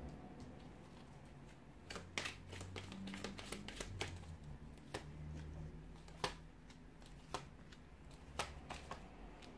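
Tarot cards being dealt onto a table: light, irregular snaps and taps as each card is flicked off the deck and set down, with some soft sliding between them.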